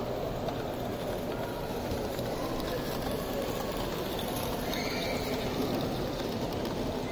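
A 16mm-scale live-steam model locomotive running close by with a train of coaches, over the steady background din of a busy exhibition hall.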